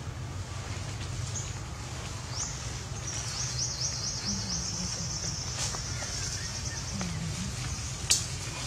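Forest ambience: a steady low hum, with a rapid high-pitched trill of about ten chirps a second that runs for a couple of seconds partway through. A single sharp click comes near the end.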